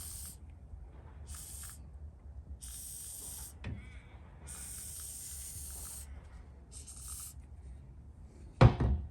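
WD-40 aerosol can spraying in several short hissing bursts, some half a second and one about a second and a half long. A single loud thump comes near the end.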